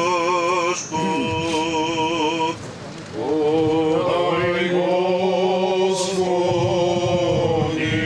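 Orthodox priests chanting a requiem (memorial) prayer together in long, held notes with a slight waver, in several phrases with a short softer break about three seconds in.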